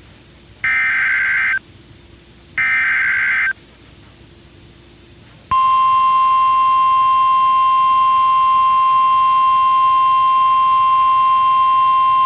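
NOAA Weather Radio Emergency Alert System sequence. Two one-second bursts of the SAME digital header, a harsh buzzing data warble about a second apart, end the header. After a two-second pause the steady 1050 Hz warning alarm tone starts about five and a half seconds in and holds, announcing a flash flood warning.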